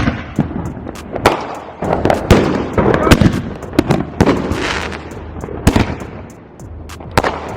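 Consumer fireworks going off: an irregular run of sharp bangs and crackling pops, with a hissing fizz about four and a half seconds in.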